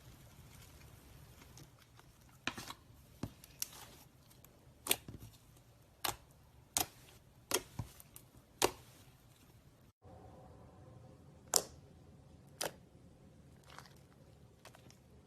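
Irregular sharp clicks and snaps, about a dozen, in a quiet small room.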